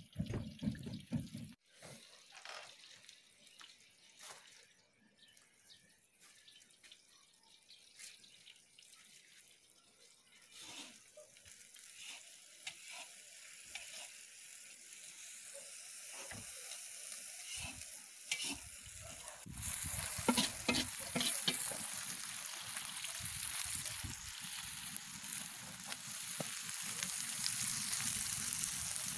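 Sliced onions frying in oil in a kazan: a steady sizzle with crackling. It comes in loud and sudden about two-thirds of the way through, after a long stretch of faint scattered clicks.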